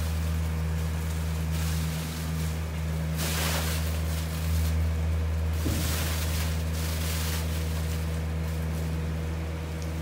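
A tipping trailer's load of machine-harvested wine grapes and juice slides and splashes into a stainless-steel receiving hopper, coming in swells of hiss, the biggest a little after three seconds and again around five to six seconds. Under it a tractor engine drones steadily.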